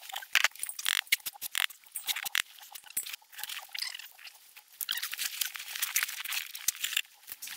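Very cold snow crunching and squeaking underfoot and under knees, with rustling and clicks of gear being handled: a string of short, irregular sounds.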